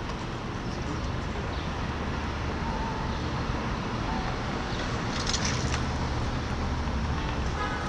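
Cars driving past on a cobblestone street: steady traffic noise with a low rumble, and a brief higher hiss about five seconds in.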